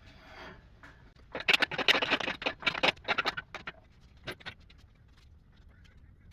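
A rapid run of sharp metallic clicks and rattles for about two seconds, then a few scattered clicks: hand tools and bolts being worked on an engine.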